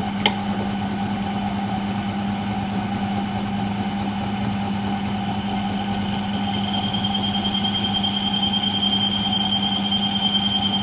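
Milling machine spindle turning a drill bit slowly through aluminium, a steady machine hum with a single click near the start. A thin high whine from the cut joins about two-thirds of the way through and holds to the end.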